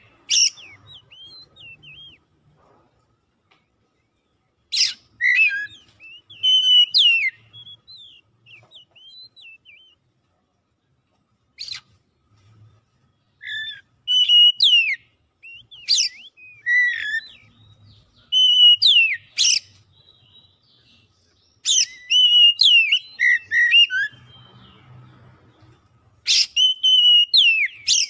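Oriental magpie-robin singing: loud phrases of quick whistled notes with sharp upward and downward sweeps, about six phrases separated by pauses of a second or more.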